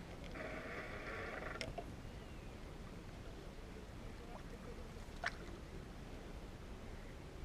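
Riverbank ambience: a steady low rumble of wind and river water, with a brief buzzy sound near the start and two sharp clicks, about one and a half and five seconds in.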